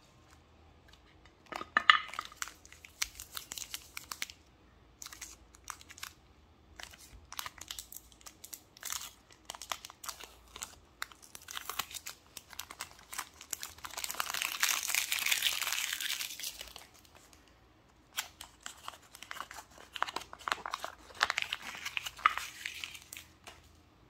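Chocolate-bar wrappers crinkling and tearing as they are handled and opened, among them a KitKat's plastic wrapper with a foil lining. The crackling comes in irregular bursts, with a steadier rustle for a few seconds just past the middle.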